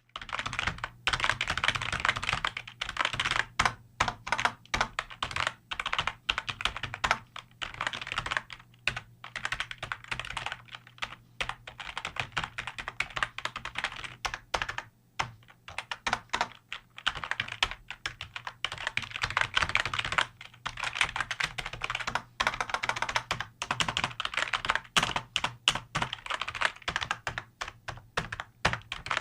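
Computer keyboard being typed on fast, dense key clicks in long runs broken by brief pauses.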